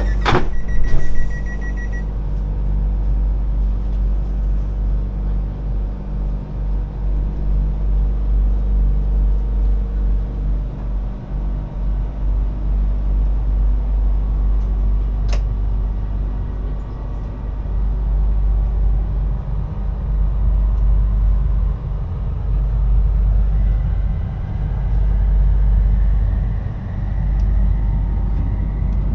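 Interior of an Airport Rail Link electric train: a steady low rumble, with rapid high electronic beeping for about the first two seconds. Near the end a whine rises steadily in pitch as the train picks up speed.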